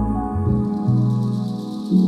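Background music: calm ambient, new-age style music with held synth tones over a low bass line that changes every second or so.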